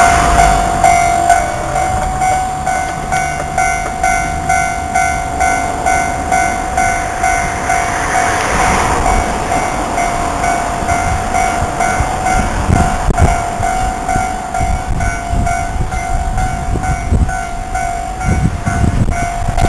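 Railway level-crossing warning bell ringing steadily at about two strikes a second. A train passes over the crossing with a low rumble, and its wheels knock over the rail joints in the second half.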